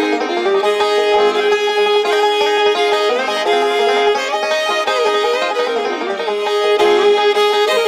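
Background music: bluegrass-style tune with banjo and fiddle.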